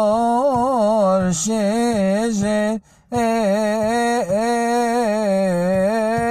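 A man chanting a Coptic church hymn solo and unaccompanied, in long held notes that waver and turn in pitch. He breaks off briefly for a breath about three seconds in, then carries on.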